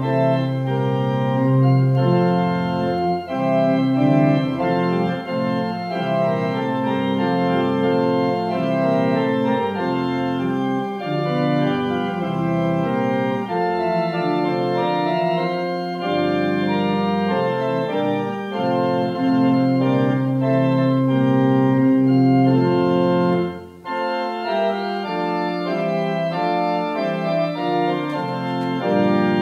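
Organ music: slow, sustained chords that change every second or so, with a brief break a few seconds before the end.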